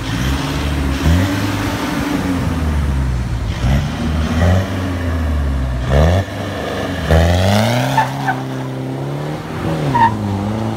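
Mitsubishi Triton pickup's diesel engine revving up and down several times through an aftermarket exhaust, then accelerating away; the black smoke it blows at the same time marks heavy, rich fuelling on a tuned engine.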